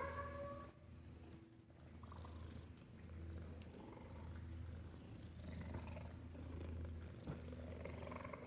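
Domestic cat purring, the low rumble swelling and easing in breath-length cycles, with a short rising meow at the very start and a brief tap near the end.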